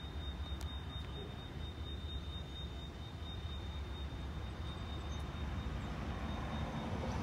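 Diesel locomotive running at low speed, a steady low engine rumble that slowly grows louder as it draws nearer. A thin, steady high-pitched whine runs above it.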